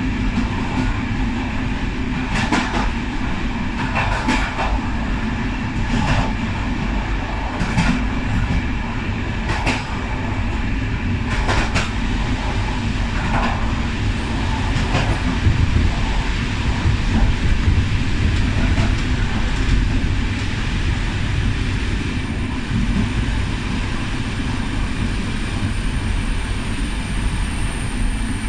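Railway coach wheels running along the track, heard from the rear of the last coach. Sharp clacks as the wheels cross rail joints come every second or two in the first half, over a steady rumble that carries on alone afterwards.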